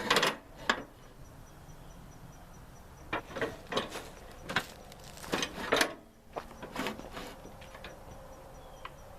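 Irregular knocks and clunks: a pair at the very start, then a run of them from about three to seven seconds in.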